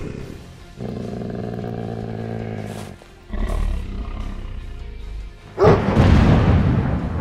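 Cartoon animal growling and roars over background music: a long low snarling growl, then a deep rumbling roar, then a sudden loud roaring blast about five and a half seconds in.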